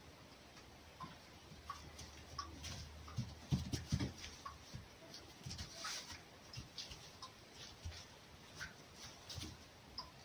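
A red fox and a young cat wrestling on a straw floor: faint, irregular rustling and scuffling with scattered small clicks, and a few short faint chirps.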